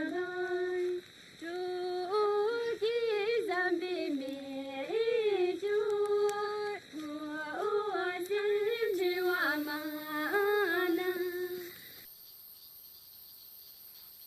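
A woman's voice singing a slow, unaccompanied melody in long held notes with slides and ornaments between them, in short phrases. The voice stops about twelve seconds in, leaving only a faint, high, steady ringing.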